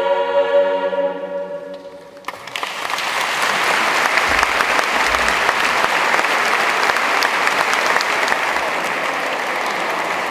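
A choir's final held chord fades away into the long echo of a stone church. About two seconds in, the audience breaks into steady applause.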